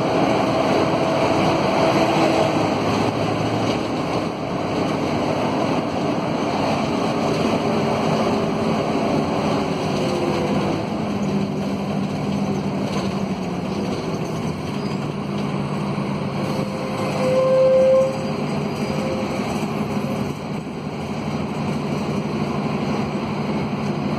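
Inside a Scania K230UB city bus under way: its Scania DC9 diesel and ZF Ecomat automatic drivetrain running, with the howl of the radiator fan, several steady tones that drift slightly in pitch as speed changes. A short, louder tone sounds about 17 seconds in.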